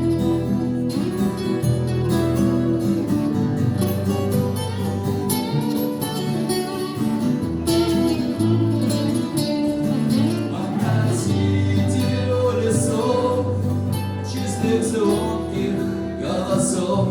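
Instrumental passage of a song, led by acoustic guitar.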